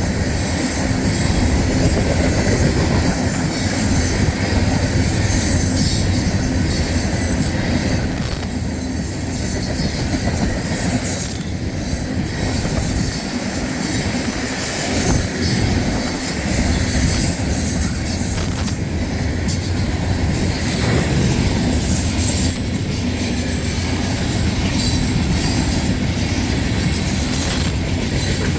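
A loaded coal train's hopper cars rolling past close by, a steady rumble with the wheels clicking over rail joints and a thin thread of wheel squeal.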